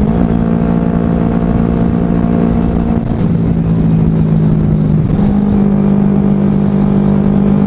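Kawasaki Ninja 250's carburetted parallel-twin engine running steadily as the motorcycle cruises; the engine note steps to a new pitch about five seconds in.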